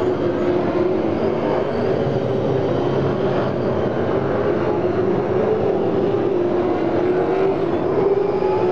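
V8 Supercar racing cars' V8 engines running together as a group of cars passes through a corner. The engine notes blend into a steady, loud sound whose pitch slowly wavers.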